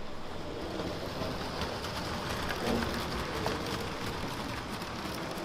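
LEGO trains running over plastic track: a steady rattle with many faint clicks, over the general noise of a large hall.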